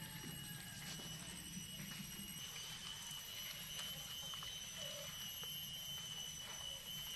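Cicadas droning: a steady high-pitched whine with fainter higher overtones, getting a little louder about two and a half seconds in.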